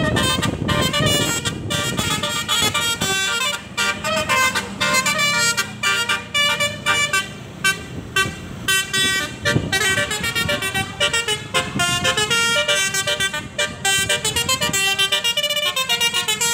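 Bus basuri ('telolet') musical horn playing a fast tune of short notes that step up and down in pitch, with engine rumble underneath in the first half.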